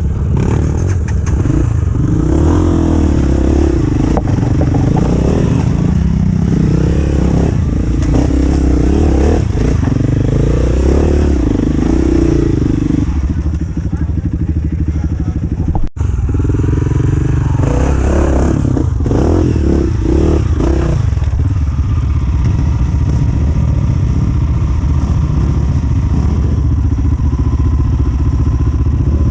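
Off-road dirt bike engines revving hard and unevenly under load, the pitch rising and falling with the throttle. There is an abrupt cut about 16 s in, and the engines run more steadily in the last several seconds.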